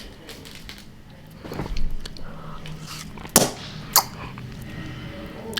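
Someone biting and chewing on a popsicle, with a few sharp clicks and crunches, the loudest about three and a half and four seconds in.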